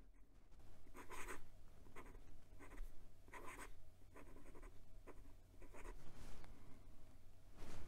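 Kaigelu 356 fountain pen nib scratching across notebook paper in a run of short, irregular pen strokes as a name is written out in cursive.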